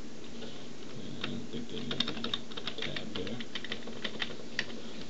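Computer keyboard keys clicking in an irregular run of keystrokes, densest between about two and three and a half seconds in, with a few single taps after.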